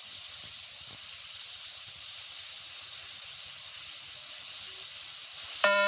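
Steady hiss of the beep-test audio track during the countdown pause, then an electronic beep tone sounds near the end: the start signal of the multi-stage fitness test.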